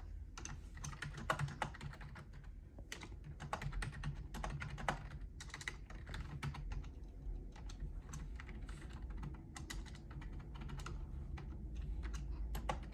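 Typing on a Lenovo Preferred Pro II wired USB keyboard: its membrane keys give an irregular run of soft keystroke clicks, several a second.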